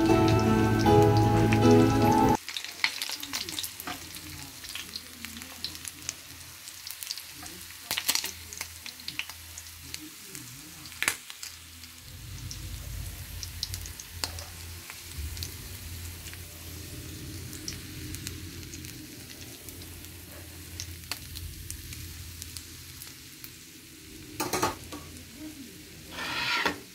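Music for about the first two seconds, then round scad (galunggong) frying in oil in a skillet: a steady sizzle with scattered sharp clicks of metal tongs as the fish are turned and lifted out. Two louder bursts come near the end.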